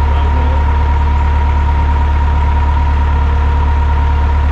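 Engine running steadily at a constant speed: a loud low hum with a steady high whine over it.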